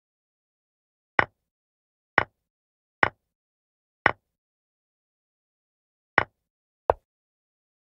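Chess-app piece-move sound effects: six short sharp clicks as pieces are moved on the board, about one a second, with a longer pause in the middle.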